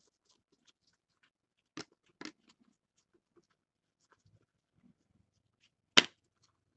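Football trading cards being flipped and sorted by hand, faint card-on-card ticks throughout. Two soft snaps come about two seconds in, and one sharp, loud click near the end.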